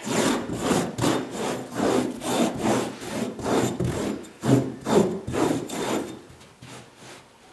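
Rapid repeated scraping strokes of a small carpet hand tool worked against the carpet edge along the baseboard, about two to three strokes a second, dying away about six seconds in.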